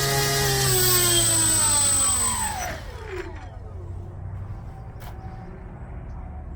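900kv brushless electric motor spinning a 3D-printed three-blade scale propeller at full throttle, then winding down: the steady whine falls in pitch and fades out over about two seconds as the throttle is cut.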